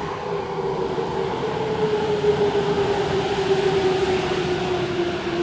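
Tokyo Metro Tozai Line subway train running, its motor whine slowly falling in pitch as the train slows, over a steady rumble from the wheels on the rails.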